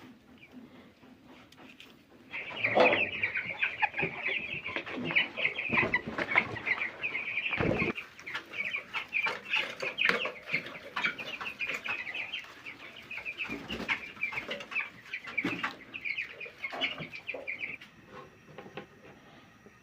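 A flock of broiler chickens calling: a dense, continuous run of short, high calls starts about two seconds in and dies away near the end. A few knocks sound among them.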